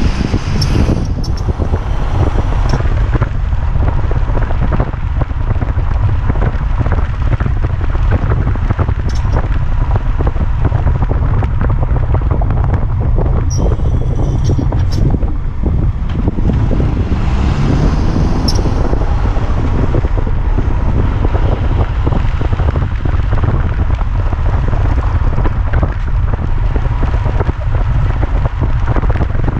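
Fiat 500L 1.4-litre petrol engine running with a steady, loud low rumble, the strange engine-bay noise whose cause the owner has not yet found. Wind buffets the microphone at times.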